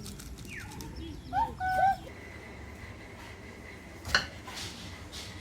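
A few short whistled bird chirps, quick rising and falling notes, a little over a second in, then a single sharp knock about four seconds in.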